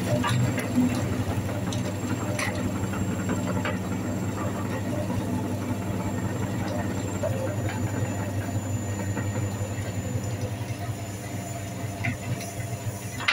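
Electric meat grinder running steadily as it grinds and pushes out crumbled material, a constant motor hum with a few faint small crackles.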